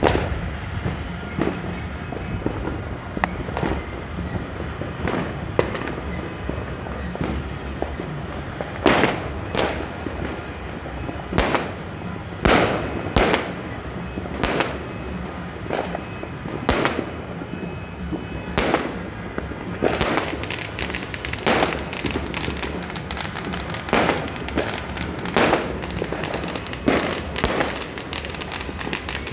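Fireworks going off: a constant crackle with many sharp bangs scattered through it, turning about two-thirds of the way in into a dense, rapid string of pops.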